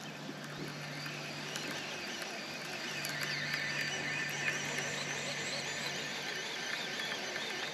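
Dense chorus of high, wavering chirps and trills from animals calling around a marshy pond, with a low steady hum underneath that stops about six seconds in.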